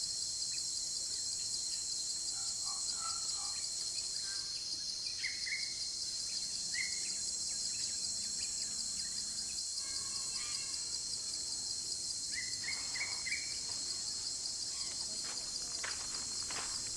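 A steady, high-pitched chorus of insects buzzing with a fast pulse, with birds chirping briefly now and then, in a run of three or four quick chirps about two-thirds of the way through.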